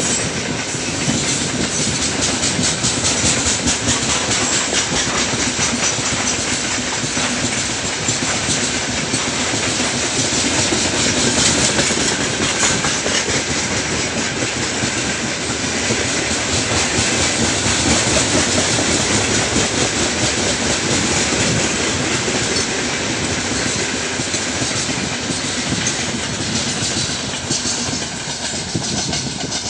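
Heavy freight train of open gondola wagons rolling past: a steady rumble of steel wheels on rail, with a rapid clickety-clack as the wheelsets cross rail joints.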